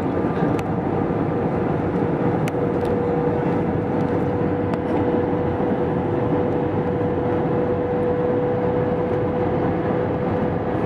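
Cabin noise inside an Airbus A320 airliner descending on approach: a steady roar of the jet engines and rushing air, with a droning tone held through it.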